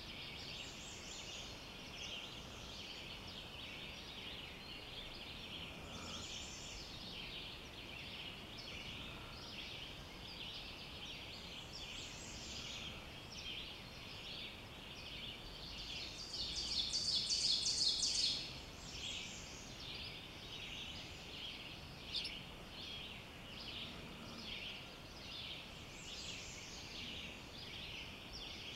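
Dawn chorus of forest songbirds, many songs and trills overlapping steadily, with one louder, fast trill lasting about two seconds just past the middle.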